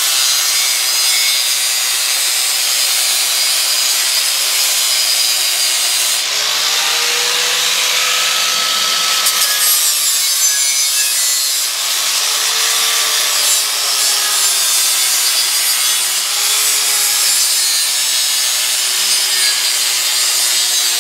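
Angle grinder with a used flap disc grinding the inside of a Lodge cast iron skillet. The motor runs steadily with a rasping scrape, and its pitch sags and recovers several times as it is pressed into the iron.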